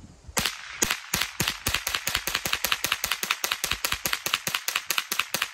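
Winchester Wildcat .22LR semi-automatic rifle, unsuppressed, fired in rapid, steady succession with Federal Auto Match ammunition at about four to five shots a second. The string begins about half a second in, and the rifle cycles every round without a malfunction.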